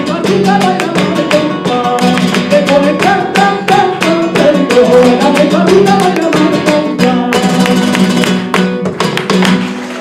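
Flamenco acoustic guitar playing a farruca, with fast strummed chords, stopping shortly before the end.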